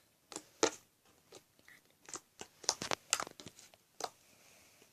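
Lumpy homemade slime squeezed and worked by hand, giving irregular sticky clicks and crackles.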